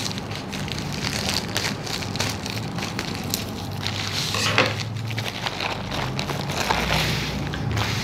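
Thin plastic courier mailer being pulled open by hand, with continuous crinkling and crackling. Near the end the clear plastic wrapping around the box inside rustles as it is handled.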